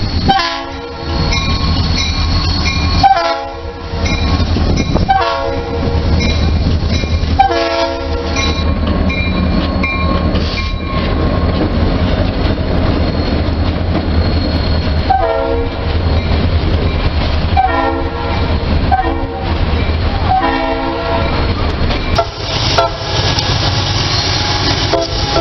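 Diesel locomotive horn sounding a series of blasts about a second long over the steady low rumble and wheel clatter of a passing freight train, first four blasts in the opening seconds, then another four a few seconds apart later on.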